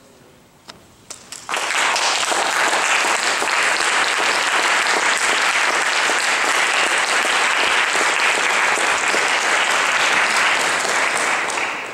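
Audience applauding: a few scattered claps, then full, steady applause from about a second and a half in, dying away near the end.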